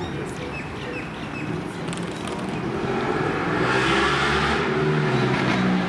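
Road vehicle noise swelling to a peak about four seconds in as a car crosses the overpass, over the low hum of an approaching Siemens Nexas electric suburban train.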